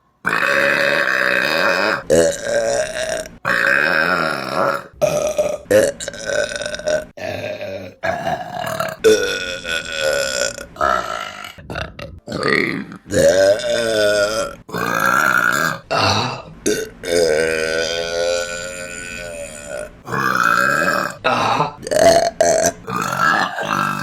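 Women burping loudly, more than a dozen separate burps in quick succession with abrupt cuts between them. Most are short, about a second or two, and one in the second half is drawn out for about three seconds with a wavering pitch.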